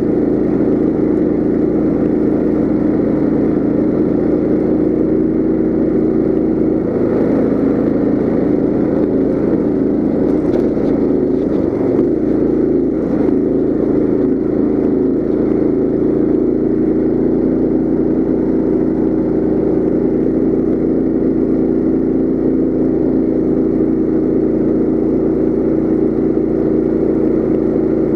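Coleman CT200U mini bike's small single-cylinder engine running steadily while the bike is ridden. Its note wavers for a few seconds near the middle, then settles again.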